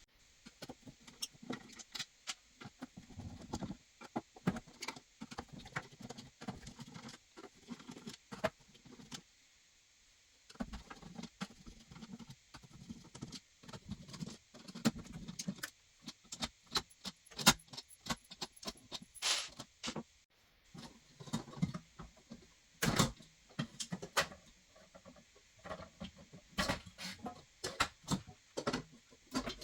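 Hands handling the AIO liquid CPU cooler's parts and small mounting hardware: irregular clicks, clinks and light rattling, pausing briefly about a third of the way through.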